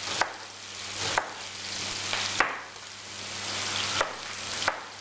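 Red peppers and chicken thighs sizzling in olive oil in frying pans, the sizzle swelling and fading. A knife strikes the chopping board a few times, about once a second, as an onion is cut into large pieces, over a steady low hum.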